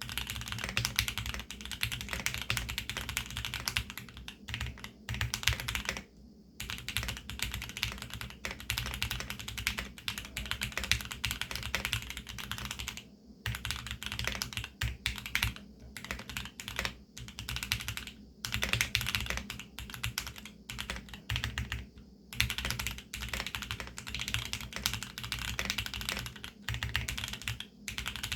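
Fast continuous typing on a custom Geonworks F1-8X mechanical keyboard with a polycarbonate bottom, lubed Tealios V2 linear switches with 80 g springs, and Monstargear PBT keycaps: a dense run of key clacks broken by brief pauses, with spacebar and stabilized keys among them.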